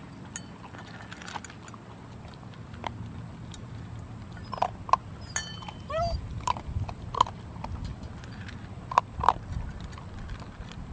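German shepherd puppy whimpering in short, high whines, some bending in pitch, while crunching dry kibble from a stainless steel bowl, with scattered sharp clicks. The whines come in pairs around the middle and again near the end, the last pair loudest, and wind rumbles on the microphone from about halfway.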